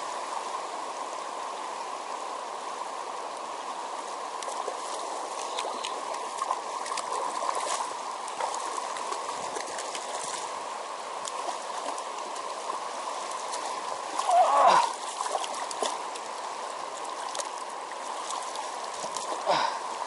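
Shallow, rocky mountain stream rushing steadily over stones, with scattered faint clicks and a brief loud voice sound about fourteen seconds in.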